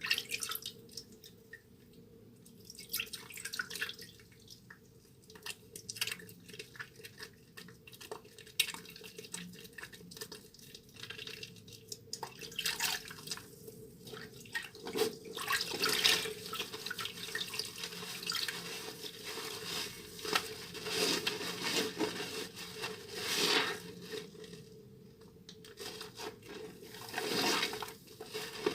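A wet bar of Duru Gourmet soap being lathered between the hands: irregular squishing and clicking with water dripping, the lathering coming in louder swells through the second half.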